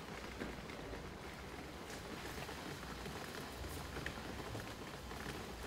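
Steady rain ambience: an even hiss with scattered light drips, over a low steady rumble.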